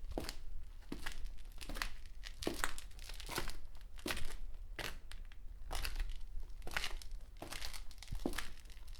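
Muddy footsteps on concrete: a steady walk of about two steps a second.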